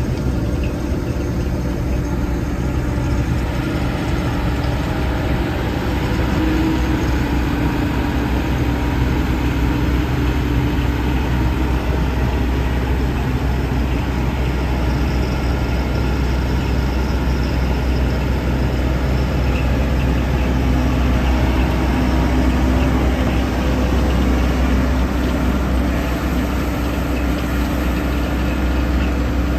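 John Deere 75 P-Tier mid-size excavator's diesel engine running steadily, with a constant low hum and a tone that shifts slightly in pitch a few times.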